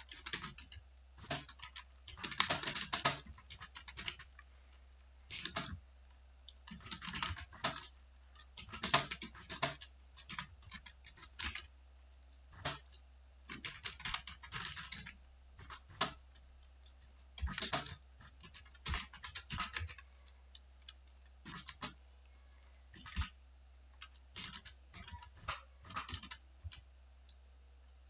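Typing on a computer keyboard, the keys clicking in irregular bursts of quick keystrokes with short pauses between them.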